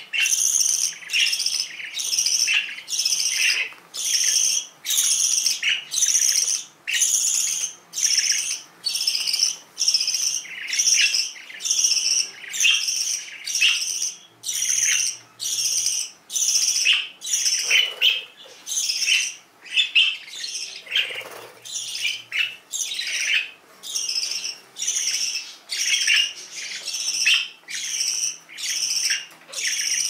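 Young budgerigars chirping, a short high call repeated evenly about three times every two seconds.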